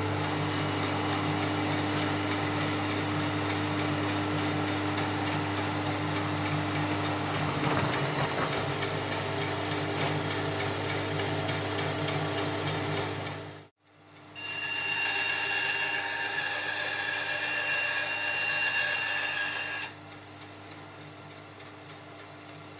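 Homemade wooden bandsaw driven by a reclaimed 2 hp electric mulcher motor, running at speed with a steady low hum. After a brief break about two-thirds of the way through, it runs again with a high steady whine, then goes quieter for the last few seconds.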